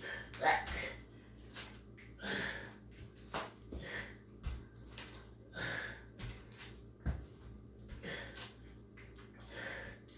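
A woman breathing hard from exertion during a plank exercise, sharp breaths roughly every second. A few thumps come in between, the loudest about seven seconds in, as the water-bottle weights and her feet come down on the mat.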